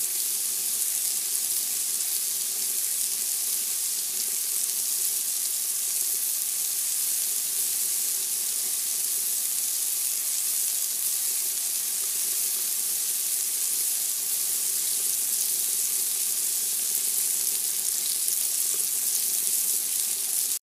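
Pork chops and foil-wrapped cabbage sizzling on a charcoal grill: a steady, even hiss that cuts off abruptly at the very end.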